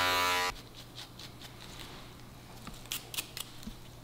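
Electric hair trimmer buzzing at the face, switched off about half a second in. Then a few faint clicks and light scrapes from the barber's tools, about three seconds in.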